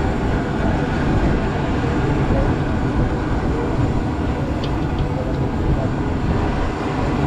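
Fishing boat's engine running: a steady low rumble with no clear pitch, with a couple of faint clicks about five seconds in.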